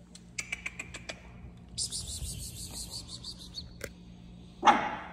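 Golden retriever puppies squeaking faintly around a stainless steel feeding dish, with a run of small clicks, then a high rustling hiss. About four and a half seconds in comes a single loud knock, the loudest sound here, from the metal dish being bumped or set down.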